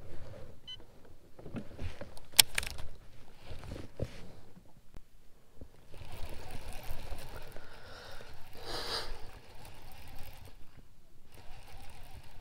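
Handling noise of a baitcasting rod and reel: scattered clicks and rubbing, with one sharp click about two and a half seconds in and a longer stretch of rustling in the second half.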